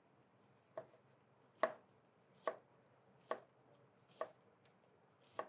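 Chef's knife slicing a white onion into thin julienne strips on a cutting board: six short knocks of the blade meeting the board, about one a second.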